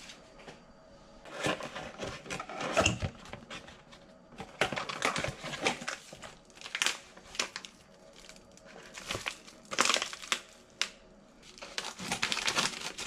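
Crinkling and crackling handling noise with sharp clicks, coming in irregular bursts with short pauses between them.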